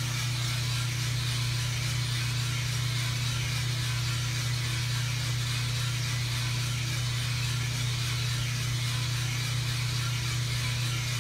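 US Roaster Corp 3-kilo drum coffee roaster running mid-roast, with its drum motor and exhaust fan on: a steady low hum under an even rushing hiss.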